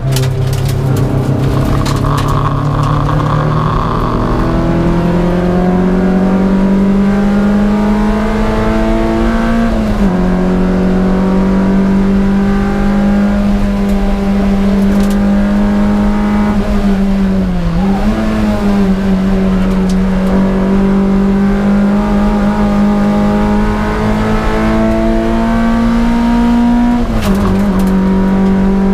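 Toyota MR2 race car's engine, heard from inside its cabin, pulling hard at racing speed. The engine note climbs steadily and drops sharply at each gear change, three times, roughly every eight seconds.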